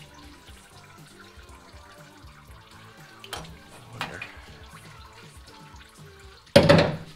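Hand wrench and socket clinking on the engine's cylinder head twice, then a loud, noisy burst lasting about half a second near the end, over soft background music.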